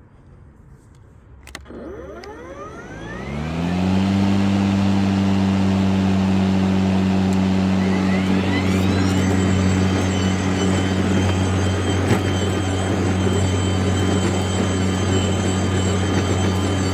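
EGO Select Cut 56V battery lawn mower started at its fastest blade speed: a click, then the electric blade motor spins up with a rising whine over about two seconds and runs at a steady hum. About eight seconds in, a higher-pitched whine rises and then holds alongside it.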